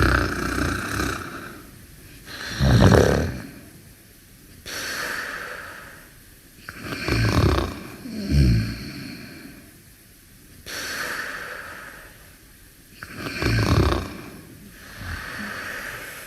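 Steady, slow snoring in sleep: low, rattling snores every few seconds, with softer breathy hissing breaths between them.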